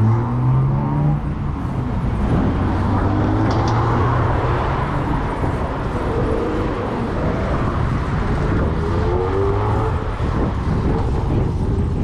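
Street traffic with motor vehicle engines running close by and speeding up several times, over a steady rumble of wind on the microphone.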